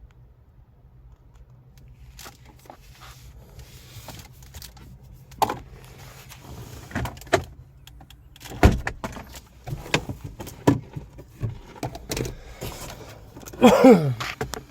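A series of sharp clicks and knocks, irregular and growing busier, ending in a loud creak that falls in pitch near the end.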